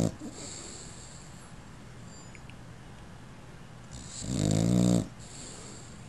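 Sleeping puppy snoring: one loud, pitched snore about four seconds in, lasting about a second, with the tail of the previous snore cutting off at the very start.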